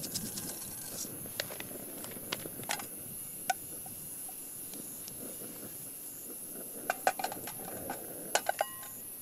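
Cumin seeds sizzling in hot cooking oil: a steady sizzle with scattered sharp pops and crackles, a quick cluster of them near the end.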